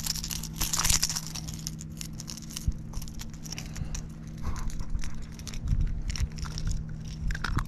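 A freshly hooked mangrove snapper being brought in and handled: scattered clicks, rustles and knocks over a steady low hum.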